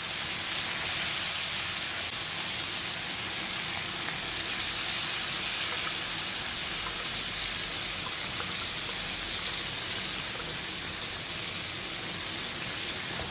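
Chicken sizzling in hot oil in a cooking pan: a steady frying hiss, a little louder about a second in.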